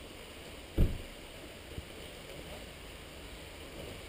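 A single dull thump about a second in, with a faint tick a second later, over steady wind-like outdoor noise.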